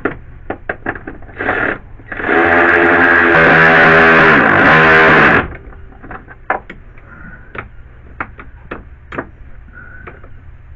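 Cordless electric ratchet running for about three seconds, driving in a bolt on the wiper motor housing; its motor whine drops in pitch just before it stops. Short clicks and knocks from the tool and parts come before and after.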